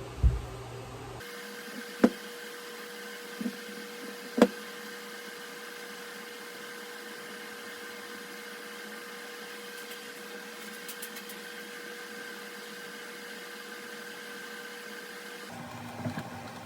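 Steady electrical hum with a constant tone, broken by a few sharp knocks in the first few seconds.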